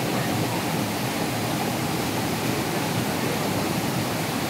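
Small waterfall pouring into a river pool: a steady, even rush of water.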